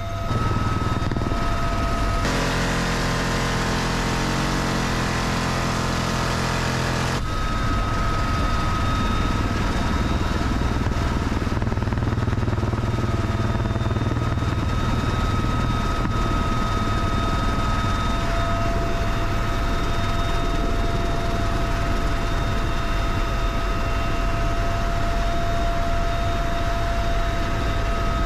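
UH-1Y Venom helicopter in flight heard from inside its open-door cabin: steady rotor and engine noise with a constant high whine and no gunfire. The sound changes abruptly twice in the first seven seconds, then holds steady.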